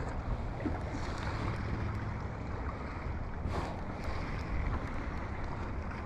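Gusty wind buffeting the microphone on an open kayak: a steady low rumble that swells and eases, with a faint short tick about three and a half seconds in.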